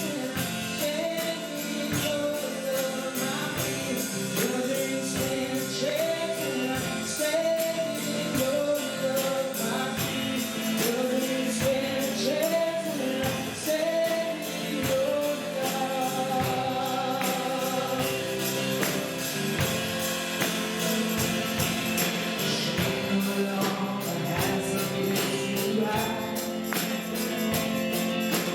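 Church worship music: voices singing a gospel-style song over a band with a steady percussion beat.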